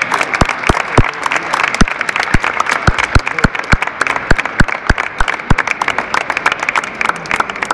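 Audience applauding, with individual sharp claps close by standing out from the dense clapping.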